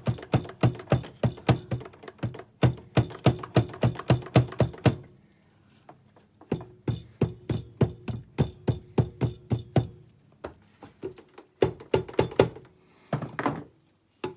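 Rapid light tapping on the cast metal gearbox side cover of a 200-250 cc ATV engine, about four or five taps a second, in runs with short pauses and a few last taps near the end, each tap with a short metallic ring: the cover is being tapped evenly all around to break it loose from the case.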